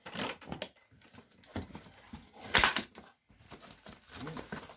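Cardboard box and packing material being handled and pulled open: irregular crinkling and rustling, with a louder burst about two and a half seconds in.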